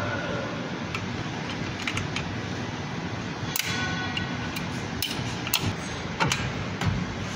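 Isuzu NPR drum brake shoes and their springs being handled during a brake lining change, with irregular small metal clicks and clinks over a steady background noise.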